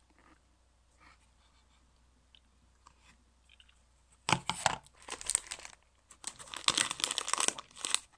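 Clear plastic bag of jelly beans crinkling and rustling close to the microphone as a hand rummages in it. It starts about halfway in and comes in several loud bursts.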